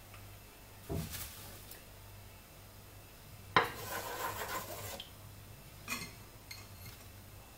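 Wooden spoon stirring chopped onion in oil in a cooking pot: a short knock about a second in, then a sharp knock about halfway through followed by a second or so of scraping against the pot, and a smaller click near the end.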